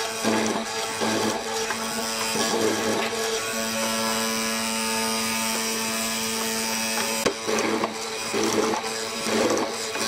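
Hollow-chisel mortiser running, its auger and square chisel plunging again and again into a wooden rail to chop out a mortise, in quick repeated bursts of cutting over a steady motor hum. The cutting pauses for a few seconds in the middle while the motor runs on alone, then starts again near the end.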